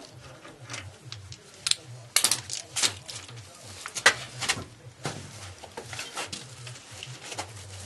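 Wheel bolts being undone and taken out of a car's rear wheel: scattered metallic clicks and clinks of the wrench and loose steel bolts, loudest about two to four and a half seconds in, as the wheel is freed from the hub.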